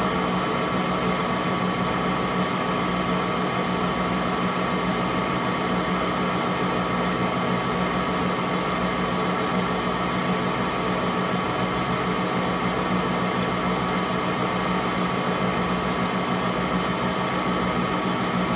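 Metal lathe running steadily with its spindle turning a bullet-mold block and a boring bar in the bore: an even hum with a steady higher-pitched tone above it.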